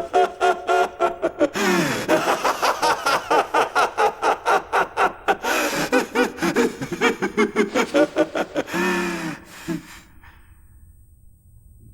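A man's long maniacal laugh, the dubbed voice of anime character Light Yagami as Kira: rapid repeated bursts of laughter rising and falling in pitch, with drawn breaths between. It stops abruptly about ten seconds in.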